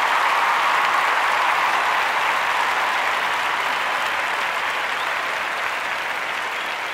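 Applause: a dense, steady wash of many hands clapping, easing off slightly.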